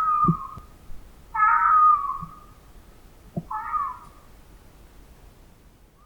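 Fox giving three short pitched calls, each under a second long and spaced about two seconds apart, the last ending about four seconds in, with a few soft low knocks between them.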